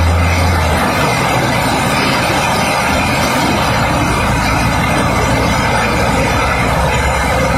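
Heavy rain pouring steadily onto a flooded road. A lorry's engine hums low under it until about a second in, then drops away.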